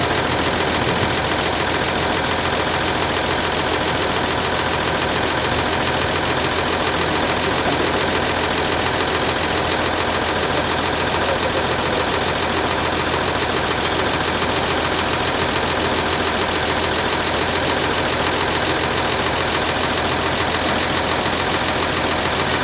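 An engine idling steadily, holding an even level and pitch throughout.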